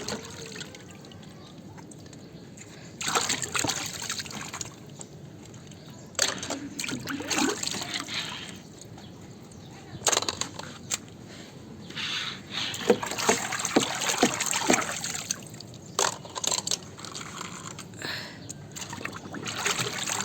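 Water splashing and trickling in repeated spells of a second or two, with quieter gaps between them, as toy vehicles are washed by hand.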